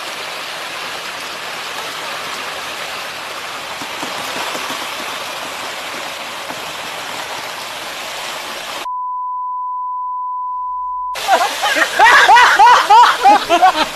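Steady rushing, churning water noise as an SUV is dragged backwards out of icy lake water. About nine seconds in it is cut by a steady beep tone lasting about two seconds, a censor bleep, followed by loud shouting voices near the end.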